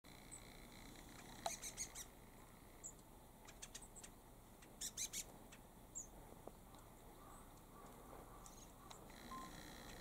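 Hokkaido long-tailed tits (shima-enaga) calling: short, thin, very high notes in quick clusters of three or four, the strongest about one and a half and five seconds in, with scattered single high chirps between.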